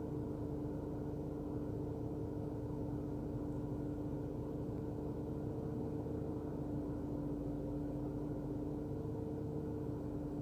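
Steady machine hum with two constant tones over a low rumble, unchanging throughout.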